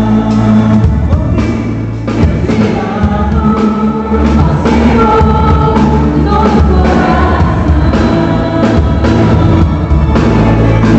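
Live gospel worship band with singers performing a song: sung melody over bass and a steady drum beat.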